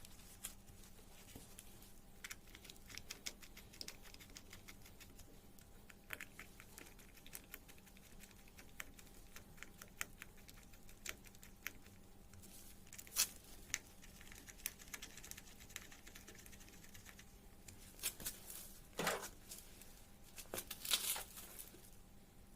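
Faint scattered clicks and crinkly rustling of a rag wiping down and handling parts of a scooter's rear gear housing during reassembly, with a few louder rustles near the end.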